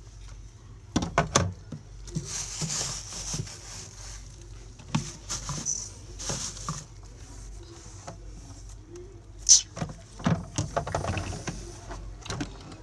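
Light rustling and handling noise with scattered taps and knocks, a cluster of louder knocks about a second in and again around ten seconds.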